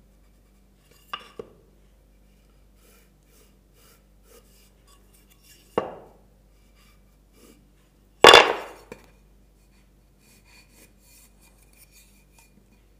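Timber pieces knocked and set down against a wooden frame on a workbench while being marked out with a pencil: two light clicks about a second in, a sharper knock near six seconds and the loudest knock a little after eight seconds, with faint scratching between.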